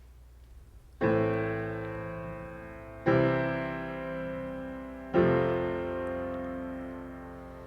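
Piano playing a slow introduction: three sustained chords struck about two seconds apart, each left to ring and fade.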